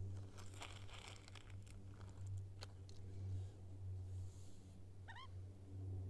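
Australian magpie giving a brief soft call of a few quick rising notes about five seconds in, over a steady low hum; a light rustle about a second in.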